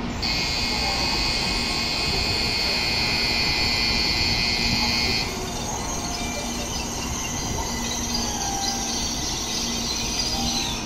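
Shinkansen platform departure bell ringing, a steady high electronic ringing that cuts off about five seconds in, the signal that the train is about to leave; after it a fainter steady hiss goes on.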